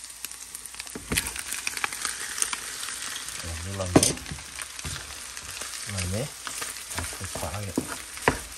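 Scrambled eggs and cooked rice frying in a hot pan, sizzling steadily while a wooden spatula stirs and scrapes through them. There is a sharp knock about four seconds in.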